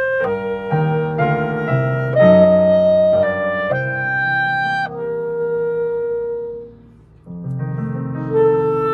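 Solo clarinet playing a melodic phrase of moving and held notes. A long held note about five seconds in trails off into a short pause, and then the playing picks up again.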